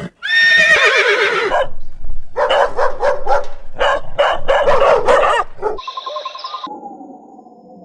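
Horse whinnying: a high, wavering call, then a long run of quick, shaky pulses. Near the end a brief steady electronic tone and a quieter gliding tone follow.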